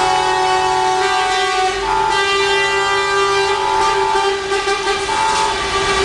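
Several truck air horns sounding together from a slow convoy of concrete mixer and dump trucks, honking in protest: overlapping steady tones of different pitches, held on continuously, with some horns dropping out and coming back in.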